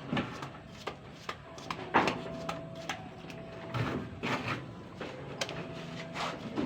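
Irregular knocks, clatters and scraping of objects being handled, the loudest knock about two seconds in, with a faint steady tone underneath.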